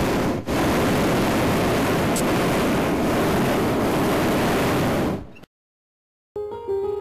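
Hot-air-balloon propane burner firing: a loud, steady rushing roar with a brief dip about half a second in. It fades out a little after five seconds, and after a second of silence piano music begins near the end.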